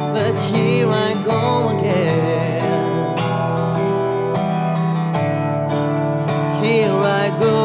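Acoustic guitar playing sustained chords, with a wavering melody line above them.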